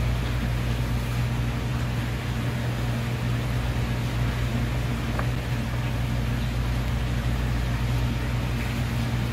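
A steady low mechanical hum that runs on without change.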